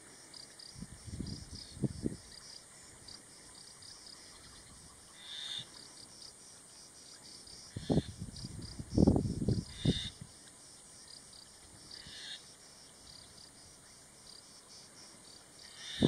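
Insects chirping in a steady run of rapid, even pulses, with a few short higher calls and some low rumbles, the loudest about nine seconds in.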